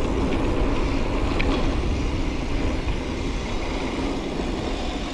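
Steady low rumble and wind noise from a mountain bike ride, as picked up by a camera mounted on the rider or bike, with a faint click or two.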